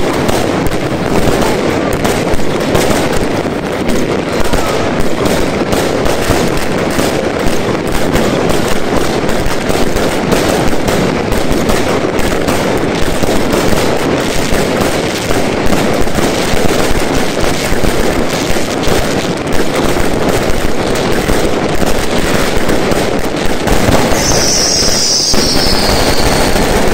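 Aerial fireworks going off in a rapid, unbroken barrage, bangs and crackle packed close together throughout. Near the end a high whistle falls in pitch over the bangs.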